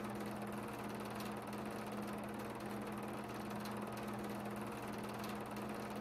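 A steady low hum with an even hiss over it, holding constant throughout.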